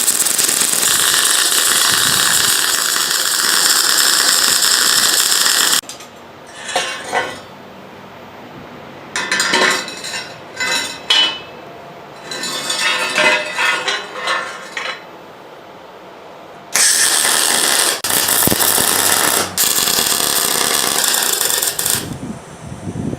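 A power tool running steadily at full speed and then stopping abruptly. This is followed by irregular clatter of metal parts and hand tools being handled, then the power tool running again in several runs with short pauses between them.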